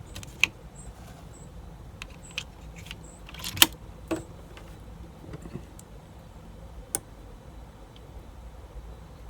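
Air rifle being readied and fired: a few metallic clicks of the action being worked, bunched about three to four seconds in, then a single sharp air rifle shot at the very end.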